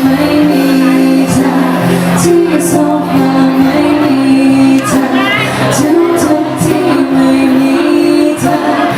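A live band playing a pop song with singing over held chords, with cymbals struck at intervals.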